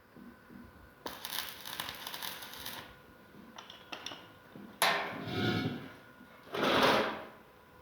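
Electric welding arc crackling in a burst of about two seconds, followed by two louder, rougher noises, the first starting abruptly.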